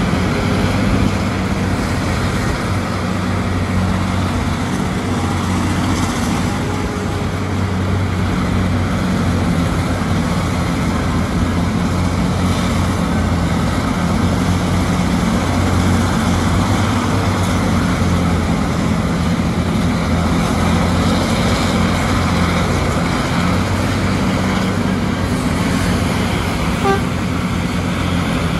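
Terex RH170 hydraulic mining front shovel working through its dig-and-load cycle: a steady engine drone with a constant low hum.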